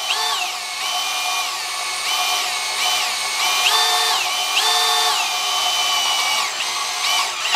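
Cordless 18 V brushless drill/driver in high gear drilling a 4 mm hole through thin steel tube. Its motor whine steps up and down in pitch several times as the bit cuts.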